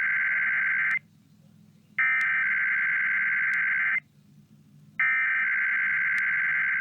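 Emergency Alert System header being broadcast: three bursts of the shrill two-tone digital data signal. The first is about a second long and the next two about two seconds each, with a second of quiet between them.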